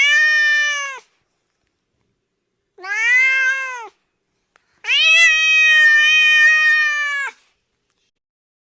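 Domestic cat meowing three times, each meow rising then falling in pitch, the last one long and drawn out.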